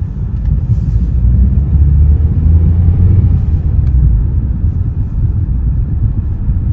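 Low, steady rumble of a car's engine and road noise heard from inside the moving car, growing a little louder about two seconds in.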